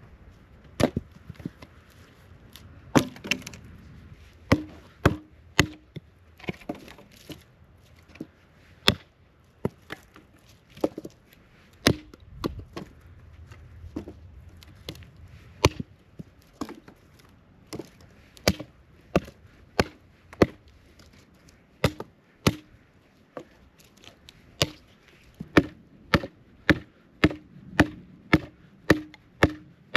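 Repeated chopping strikes on wood, sharp and separate: irregular at first, then a steady beat of about two a second near the end.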